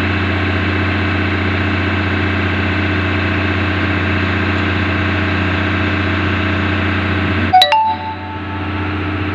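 Sumitomo excavator's diesel engine running steadily. About seven and a half seconds in comes a sharp metallic clank with brief ringing, the loudest sound here, after which the engine runs a little quieter.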